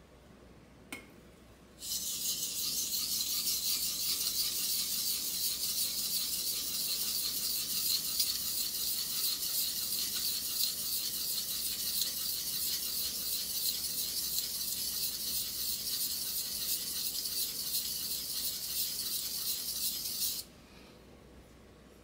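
A steel kitchen knife blade is stroked back and forth on a wet whetstone, making a steady, hissing scrape. It starts about two seconds in and stops abruptly shortly before the end.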